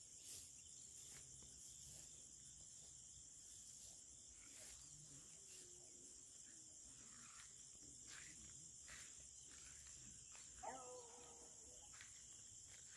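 Near silence in an open field: faint, steady chirring of insects such as crickets, with a few faint clicks and one brief faint call about eleven seconds in.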